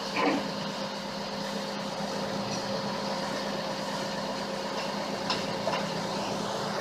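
Caterpillar tracked excavator's diesel engine running steadily at idle, with a short clunk just after the start and a few faint clicks later.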